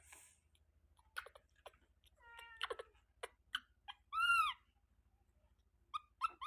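Baby monkey calling: short high-pitched squeaks and clicks, then a louder arching cry about four seconds in, and a few short calls near the end.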